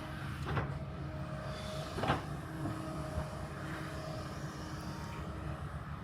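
Kobelco excavator's diesel engine running steadily under work, with a couple of sharp knocks from the digging, about half a second and two seconds in.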